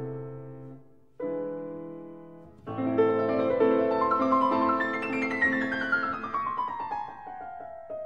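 Piano music: struck chords that die away, fresh chords about a second in and again near three seconds, then a long run of notes stepping downward toward the end.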